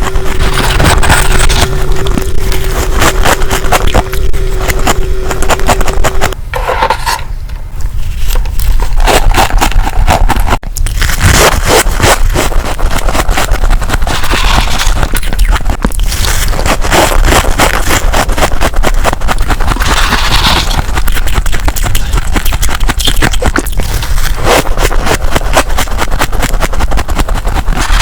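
Freezer frost being scraped and crunched close to the microphone: dense, rapid crackling. A steady hum runs underneath for the first six seconds or so, then stops.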